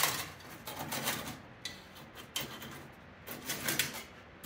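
Steel band saw blade scraping and rubbing against the saw's wheels and blade guides as it is worked off, in several short bursts, the sharpest right at the start. The old blade is being removed because it no longer cuts properly.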